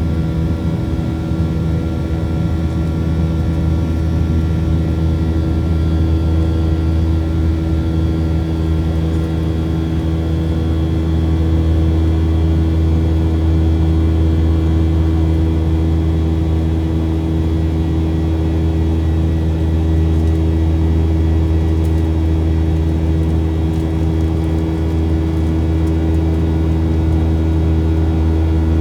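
Aircraft engine drone heard from inside the cabin in flight: a steady, loud low hum with several fixed pitches above it, unchanging throughout.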